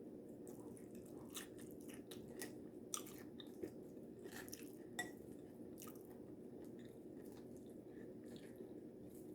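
Faint chewing and crunching of taco salad with tortilla chips, with a few sharp clicks about three, three and a half and five seconds in, over a low steady hum.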